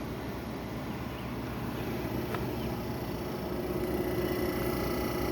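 Mid-1950s Fedders-built RCA Whirlpool half-horsepower window air conditioner running, its Tecumseh compressor and fan giving a steady hum, a little louder from about halfway through.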